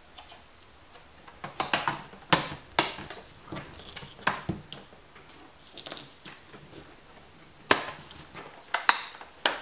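Sharp plastic clicks and knocks as the Dell Latitude 2120's bottom case is pressed onto the chassis and its edges snap into place. The clicks come in irregular clusters, about ten in all, some in quick pairs.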